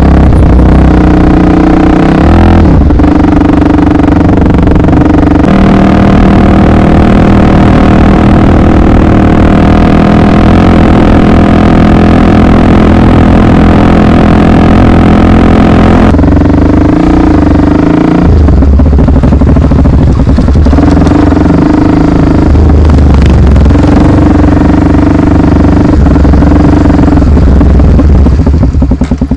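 Honda XR 250 Tornado's single-cylinder four-stroke engine running hard while being ridden, its pitch stepping up and down several times as the rider works the throttle and gears.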